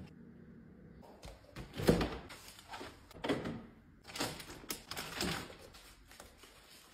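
A few knocks and thumps from household handling, the loudest about two seconds in, with a refrigerator door opened and shut and items taken from its shelves.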